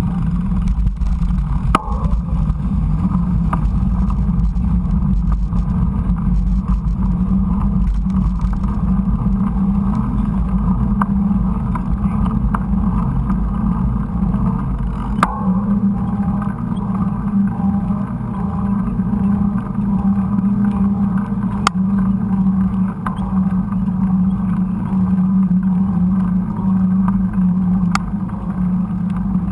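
Steady low rumble of a mountain bike riding a dirt trail, heard through a GoPro: wind on the microphone and tyres on the ground, with a few sharp knocks from the bike.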